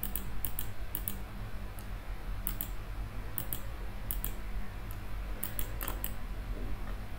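Light, sharp clicks, often in pairs and coming every second or so, from a computer or stylus input as handwritten ink strokes are undone one by one, over a steady low electrical hum.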